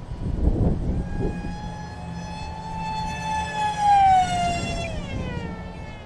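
An RC FunJet plane flying past at speed: the high whine of its electric motor and propeller grows louder, peaks about four seconds in, then drops in pitch as it passes and moves away. Wind buffets the microphone in the first second or so.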